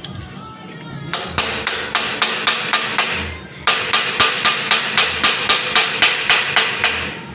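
Hammer striking steel in quick, even blows, about four a second, with a steady metallic ring under them; after a short pause about three seconds in, the blows resume louder.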